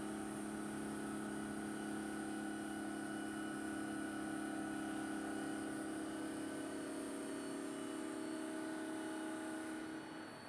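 Water-cooled bridge saw's blade running through a granite slab: a steady motor hum with several constant tones over a wash of noise. It gets a little quieter near the end.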